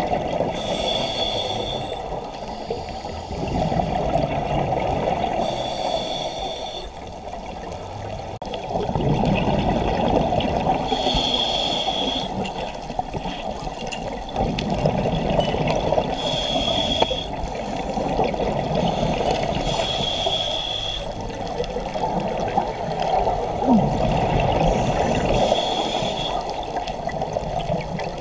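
Scuba breathing heard underwater through a regulator: six short hissing inhalations about every four to five seconds, with a continuous low rumble of exhaled bubbles between them.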